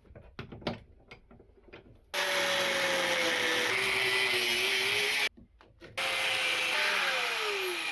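A few light knocks, then an electric power tool cutting through metal in two runs of about three seconds each, a hissing grind with a whine that sags in pitch as it bites. The tool stops for a moment between the runs, and the whine falls steadily near the end.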